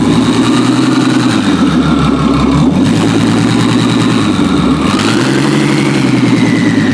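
Twin-turbocharged Ferrari F12's V12 running, revved lightly twice, with a whine from its bonnet-mounted turbochargers rising and falling with the revs.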